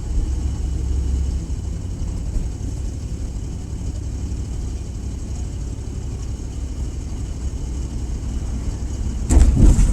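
Ford Crown Victoria's V8 engine running rough, heard from inside the car as a low uneven rumble: a misfire, with the car logging random multiple misfires and a misfire on cylinder 1 despite a recent tune-up. The rumble grows louder about nine seconds in.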